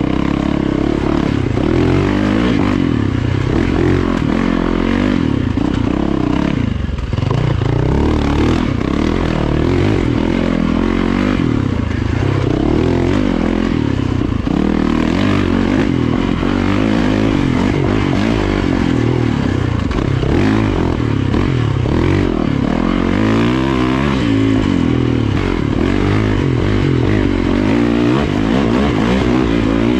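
Yamaha dirt bike engine running hard on a woods trail, its pitch rising and falling constantly as the throttle is worked through the turns, with no let-up.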